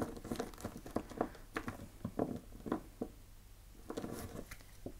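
A deck of oracle cards shuffled by hand: a quick, irregular run of soft card flicks and taps.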